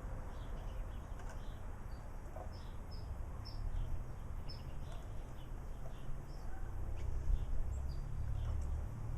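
Small birds chirping, many short quick notes scattered through, over a low steady rumble.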